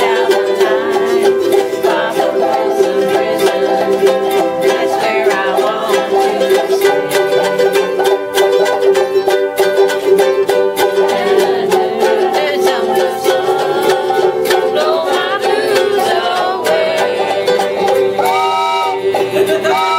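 A group of ukuleles strumming a country shuffle, with a train whistle blown in two short blasts near the end.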